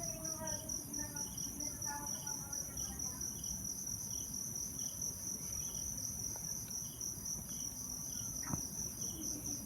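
Insects trilling: a steady, high-pitched, pulsing trill throughout, with a fainter chirp repeating about one and a half times a second. A few short pitched calls come in the first two seconds.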